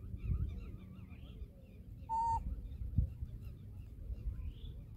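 Young macaque gives one short, high-pitched cry, held at one pitch, about two seconds in. Faint chirps sound in the background, and there is a low thump about a second later.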